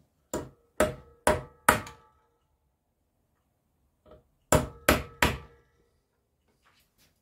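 Hammer striking a centre punch into the metal rim of an ABS pump motor housing: four sharp blows in quick succession, then a light tap and three more blows about three seconds later, each with a short metallic ring. The punch is forming indents to hold the replacement motor down on the unit.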